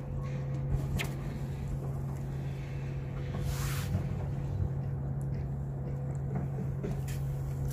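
Steady low engine drone. A brief rushing swish about three and a half seconds in, as the fishing rod is struck to set the hook.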